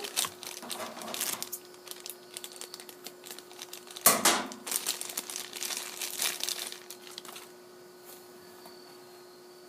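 Packaging crinkling and rustling as accessory cables are handled and taken out of a camcorder box, loudest about four seconds in; the rustling dies away for the last couple of seconds, leaving a faint steady hum.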